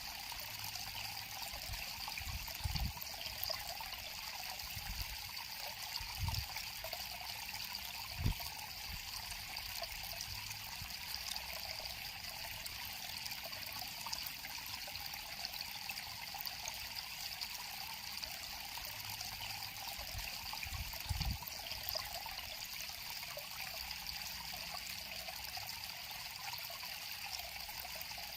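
River water flowing and trickling steadily, with a few short, soft, low thumps scattered through it, most around the first eight seconds and one about 21 seconds in.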